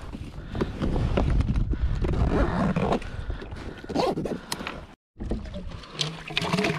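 Knocking and rustling of gear being handled on a plastic kayak close to the camera, with irregular thumps and scrapes; the sound cuts out for a moment about five seconds in.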